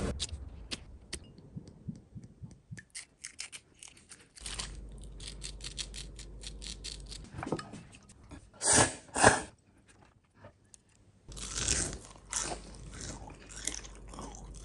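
Eating crisp panko-coated vegetable tempura: a long run of sharp crunches and chewing, with two louder bursts about nine seconds in.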